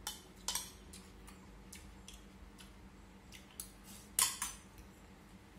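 Chopsticks and a metal spoon clicking against a ceramic rice bowl as a meal is eaten: scattered light taps, with a sharper clack a little after four seconds in.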